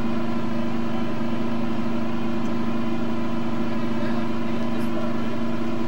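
Diesel engine of an M113-family tracked mortar carrier idling with a steady drone.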